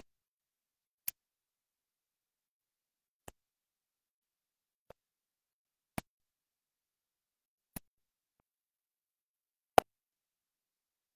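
Six single sharp clicks at irregular intervals with dead silence between them; the loudest comes near the end.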